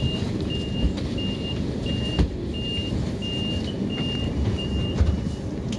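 Electronic warning beeper sounding a steady run of short high beeps, about three every two seconds, over a low rumble; a couple of dull knocks, the sharpest about two seconds in.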